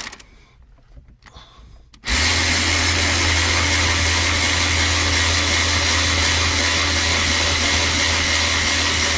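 Cordless drill-driver running at a steady speed. It stops right at the start, is quiet for about two seconds, then starts again and runs steadily for about seven seconds.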